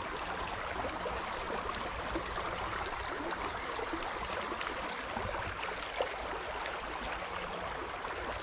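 Shallow stream running over a stony bed: a steady rush of water, with a few faint clicks.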